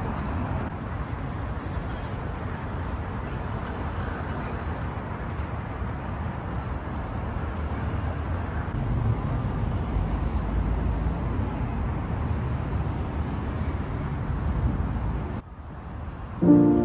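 Steady low rumble of road traffic: vehicle engines and tyres. It cuts off suddenly about a second and a half before the end, and music begins just before the end.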